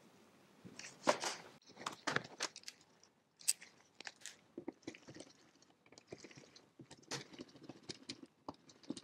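Scattered light clicks and taps of small metal parts and screws being handled against an aluminium carburettor on a steel bench, with quicker runs of ticking near the end as a small hand ratchet starts the little cover screws.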